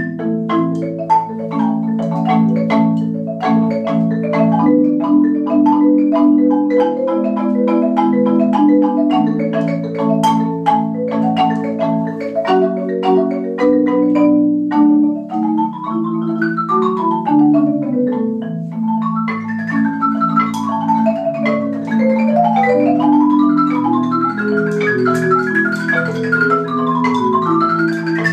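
A Yamaha concert marimba played as a four-hands duet by two mallet players. Low notes are held as a bed throughout, and quick rising and falling runs of notes sweep up and down the keyboard, coming more often in the second half.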